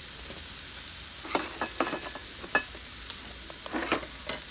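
Pork sizzling and frying in a skillet on a camp stove, a steady hiss, with sharp clicks and knocks of tongs and containers being handled from about a second in.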